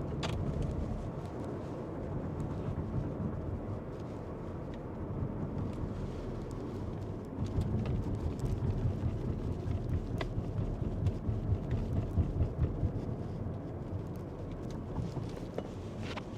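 Road and engine noise heard from inside a moving car: a steady low rumble that swells for a few seconds midway.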